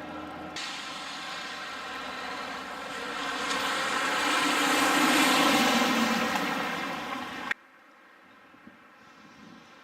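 An engine passing by: a steady buzzing drone that swells to its loudest about five seconds in, then starts to fade. It cuts off abruptly about three-quarters of the way through, leaving only faint background.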